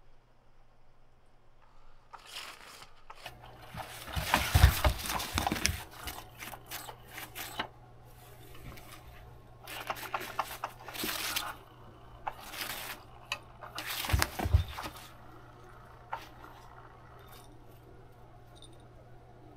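Fabric cover of an electronic cat toy rustling and scraping in several bursts as a tabby cat paws at it and pushes its head underneath. The loudest stretch comes about four to six seconds in.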